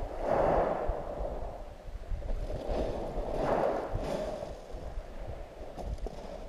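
Small waves washing up the shingle beach, two swells of surf that rise and fall, over a low wind rumble on the microphone.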